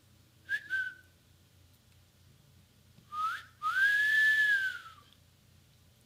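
A person wolf-whistling by mouth: two short chirps about half a second in, then about three seconds in the classic two-part call, a quick upward slide followed by a longer note that rises and falls away.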